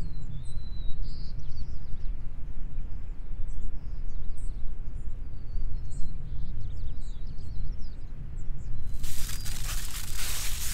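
Steady low outdoor rumble with small birds chirping faintly. From about nine seconds in, dry fallen leaves crunch and crackle underfoot.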